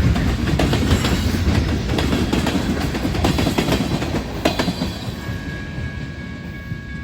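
Railroad cars rolling past with a heavy low rumble, their wheels clicking over the rail joints. The rumble fades away about five seconds in, and a steady high ringing tone comes in.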